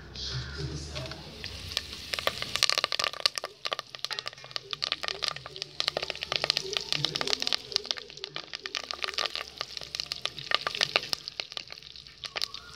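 Curry leaves spluttering and crackling in hot oil in a clay pot, a dense, irregular run of sharp pops that starts about two seconds in.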